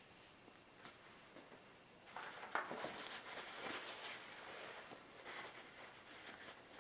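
Faint rustling and crinkling of a paper shop towel being handled and rubbed over a freshly oil-filled RC shock absorber, starting about two seconds in, with a light tap of a small part set down on the bench.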